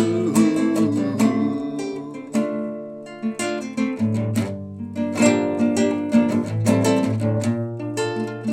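Instrumental music on acoustic guitar: strummed chords and picked notes, with no singing.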